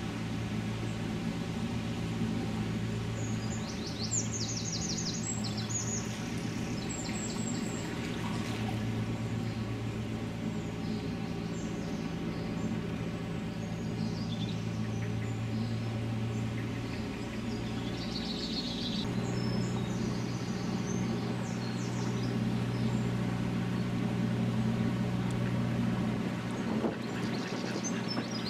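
Narrowboat's diesel engine running at a steady pitch. Birds chirp over it, in a short burst early on and again about two-thirds through.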